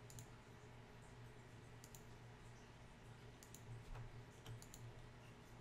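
Faint computer mouse clicks, scattered, with a few in quick succession, over a low steady electrical hum.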